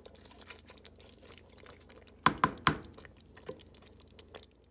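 Wooden spoon stirring chunks of curried mutton in a pot, with scattered small clicks and three sharp knocks close together about halfway through.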